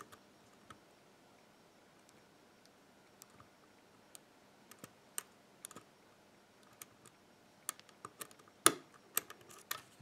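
Faint, sharp metallic ticks and clicks of a shallow hook pick working the pins inside a six-pin WILKA euro cylinder held under light tension. The clicks are sparse at first and come more often in the second half, the loudest a little before the end.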